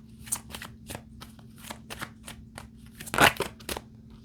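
Tarot cards being shuffled by hand: a quick run of card snaps about four a second, with one louder slap a little past three seconds in, over a faint steady hum.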